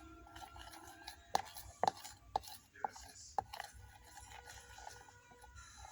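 A spoon beating a thick glue-and-detergent slime mixture, with a few sharp clicks of the spoon knocking against its container.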